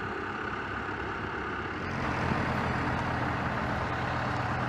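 Engines of a convoy of Harlan aircraft tow tractors running steadily as they tow helicopters along a runway, a low hum that gets louder about two seconds in.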